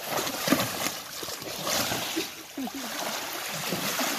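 Draft horse splashing in a shallow creek as it paws at the water and lies down in it, with repeated splashes over the steady running of the creek.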